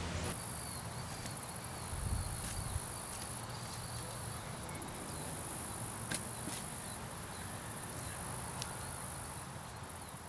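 Insects, crickets by the sound of it, chirring steadily and high-pitched, with a few faint ticks.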